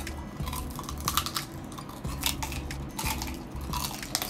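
Close-up biting and chewing of crispy roasted pork: a string of sharp crunches and crackles, several to a second.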